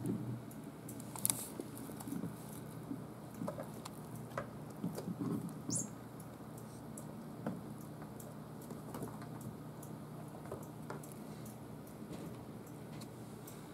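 Light, scattered patter and scratching of kittens' paws moving about a cat tree and wooden floor, busiest in the first half, over a faint steady low hum.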